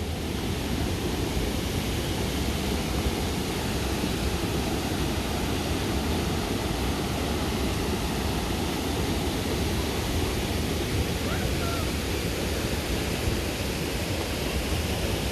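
Steady rushing of water from a small waterfall on a clear river, an even, unbroken hiss with no pauses.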